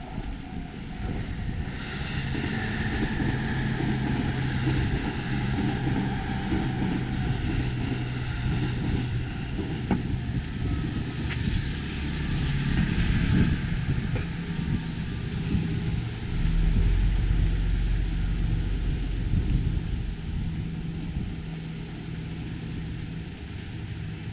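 Motor vehicles running close by in street traffic: a steady engine hum throughout, with a deeper rumble swelling from about sixteen seconds in.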